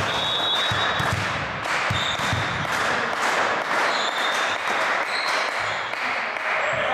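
Volleyball court in a sports hall between rallies: a volleyball bounces on the floor a few times in the first half. Short high squeaks come and go over a steady echoing hall noise.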